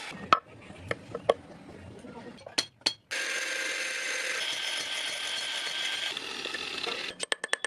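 Mechanical clicking from workshop work: a few sharp clicks, then a steady machine-like noise that starts suddenly about three seconds in, and a quick run of clicks near the end.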